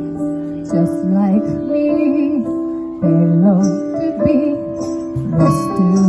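Live music: a woman singing a slow ballad melody in phrases over sustained chords on an electronic keyboard with a piano sound.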